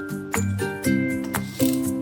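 Background music: a bright tune of held chords with a steady beat about twice a second.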